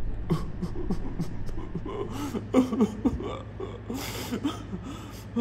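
A man crying: short, broken whimpering sobs and shaky breaths, with a sharp noisy intake of breath about four seconds in.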